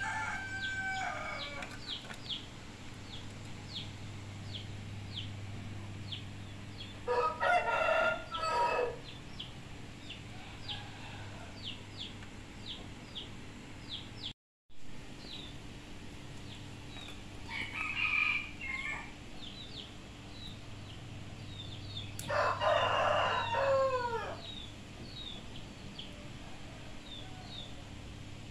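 A rooster crowing three times: once about a quarter of the way in and twice in the second half, the last call the longest.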